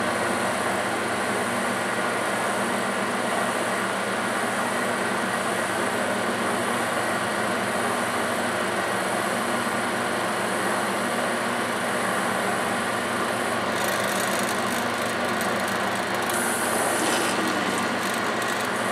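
Open headstock gear train of a 1956 Pratt & Whitney 12C lathe running steadily: meshing gears with a steady whine under an even mechanical whir, the drive clutch only feathered, partly engaged, so the oiled gears aren't flinging oil. A brighter hiss joins in about fourteen seconds in.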